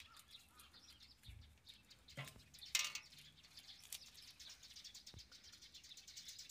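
Birds chirping faintly in the background, with two brief sharp noises about two and three seconds in, the second the loudest.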